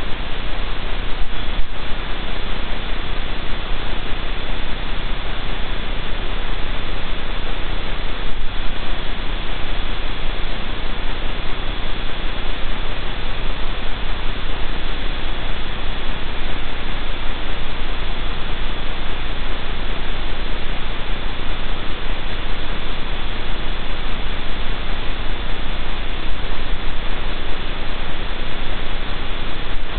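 Steady, loud hiss and static with a low mains hum and a thin, steady high tone: electrical noise on the outdoor camera's audio feed. One or two faint ticks come about a second and a half in and again around eight seconds in.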